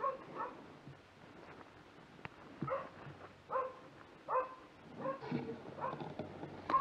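Mixed-breed tracking dog barking at a bayed wild boar: fairly faint, short barks about once a second, with a pause of about two seconds near the start.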